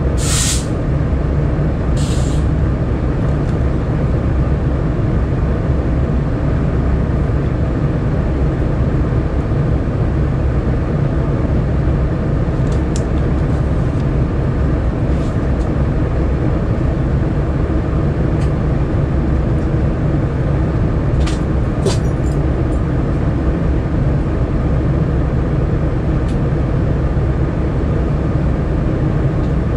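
Diesel-electric freight locomotives idling at a standstill: a steady low engine drone. Near the start come two short hisses of air, about two seconds apart.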